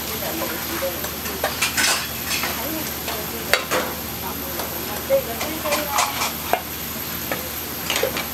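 A metal ladle stirring and scraping in small metal pots of braised hairtail stew, clinking irregularly against the pot rims. Under it, a steady sizzling hiss comes from the stew cooking over open gas flames.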